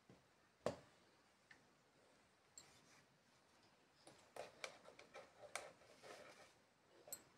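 Near silence with faint scattered clicks and soft rustling, a dense cluster of them in the second half: a plastic Philips clothes iron being slid and pressed over a lying kitten's fur.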